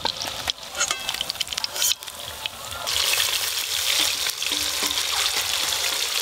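Chopped capsicum frying in hot oil in a wok, stirred with a metal spatula. A few metal clinks of utensils in the first two seconds, then the sizzle grows loud and steady about three seconds in.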